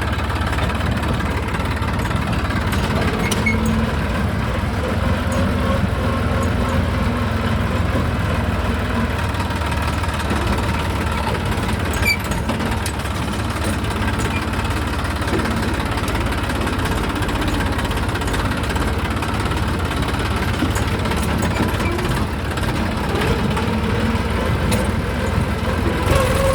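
Diesel tractor engine running steadily with a heavy low rumble and vibration, as the tractor hauls its load of soil.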